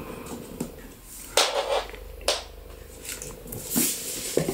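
Stiff outer packaging sleeve being handled and worked loose from its box: a short scrape about a second and a half in, a sharper one just after two seconds, and a brief high rustle near the end.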